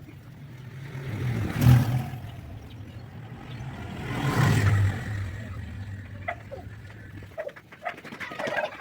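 A motor vehicle engine running with a low hum, swelling louder twice, then cutting off abruptly near the end.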